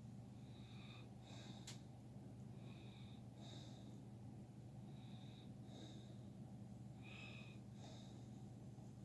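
Faint room tone with a steady low hum and a person's nasal breathing close to the microphone, a breath in and out about every two seconds, and a single sharp click about two seconds in.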